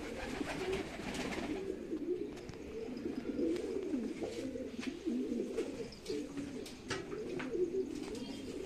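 Pigeons cooing continuously, several low cooing calls overlapping one another.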